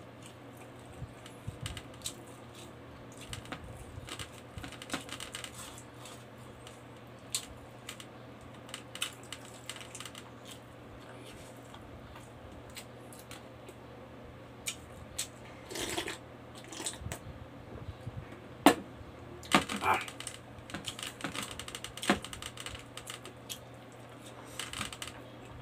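Close-miked mouth sounds of eating rice and pork adobo by hand: a scatter of short wet clicks and lip smacks from chewing, busiest about two-thirds of the way through, over a steady low hum.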